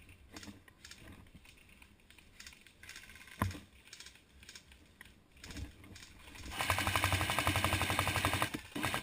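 Airsoft gun firing a rapid full-auto burst of about two seconds near the end, preceded by scattered light clicks and one sharp snap about three and a half seconds in.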